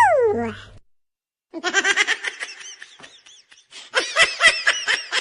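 High-pitched laughter used as a comedy ringtone: a rapid run of short "ha" pulses, about five a second, starting about one and a half seconds in after a brief dead silence. At the very start a falling vocal glide trails off.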